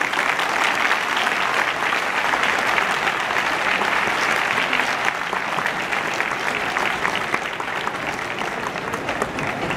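Audience in an arena applauding, a steady patter of many hands clapping that eases slightly near the end.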